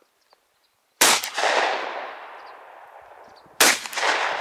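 Two shots from an IZh-43 side-by-side double-barrel shotgun, the first about a second in and the second about two and a half seconds later. Each crack is followed by a long echo that fades away over about two seconds.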